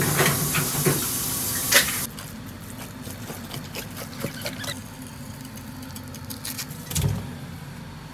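Kitchen sounds of fish being prepared. A loud steady hiss with a few sharp clicks for about two seconds stops suddenly. Then come scattered light taps and scrapes of a knife working along a fish on a cutting board, and a dull thump about seven seconds in.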